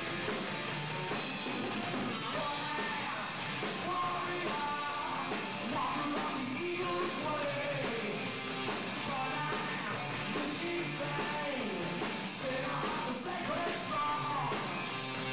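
Alternative rock band playing live: electric guitars and drums keeping a steady beat, with the lead singer singing and shouting into the microphone from about two seconds in.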